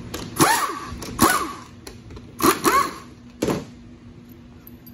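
A dog barking: five sharp, loud barks over about three seconds, two of them close together in the middle.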